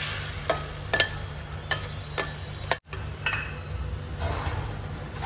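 Spatula clicking against a stainless steel kadhai about five times in the first three seconds as a wet vegetable curry is stirred, over a soft steady sizzle of the curry cooking in the pan.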